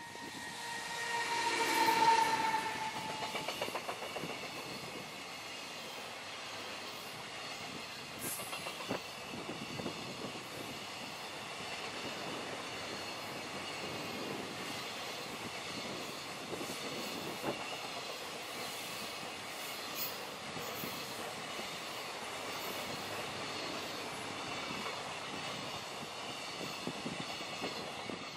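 EF210 electric locomotive passing with a whine of several tones that falls in pitch as it goes by, loudest about two seconds in. Then comes the steady rumble and clatter of a long train of container wagons, wheels clicking over rail joints, with faint high ringing from the wheels. The sound drops away near the end as the last wagon passes.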